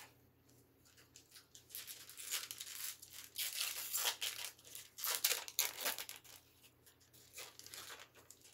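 Foil wrapper of a 2020 Topps Pro Debut baseball card pack being torn open and crinkled by hand. The crackling rustle builds over the first couple of seconds, is loudest in the middle, and thins to lighter crinkles near the end.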